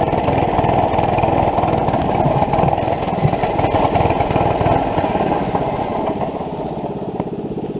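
Small engine of a go-kart or mini bike running close to the microphone, a fast, even chugging. About six seconds in it drops to a quieter, steadier idle.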